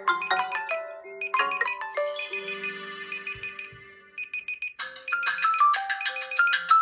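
Smartphone ringtone melodies: a tune of short, quick notes, then a held chiming chord that fades away, and about five seconds in a new, louder ringtone tune begins over a held low note.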